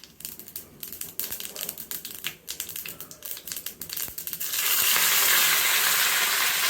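Mustard seeds and urad dal popping and crackling in hot sesame oil in a tempering ladle. About four and a half seconds in, a loud steady sizzle starts suddenly as curry leaves go into the oil.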